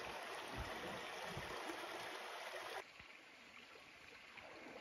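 Steady rushing of a small river running past the campsite. About three seconds in it drops suddenly to a fainter rush.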